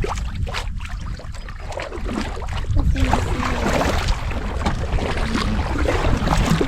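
Wind buffeting the microphone, with water sloshing and splashing around a stand-up paddleboard. The splashing gets busier about three seconds in.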